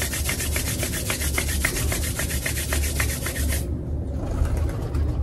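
Palms rubbed briskly together, a rapid rhythmic swishing of skin on skin, which stops about three and a half seconds in. The rubbing warms the palms before they are cupped over the eyes.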